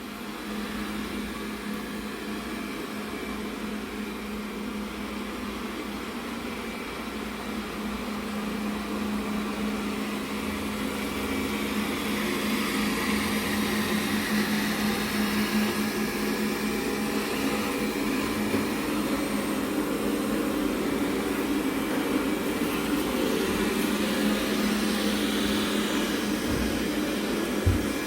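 Robot vacuum cleaner running with a steady motor hum and whir, gradually getting louder as it works.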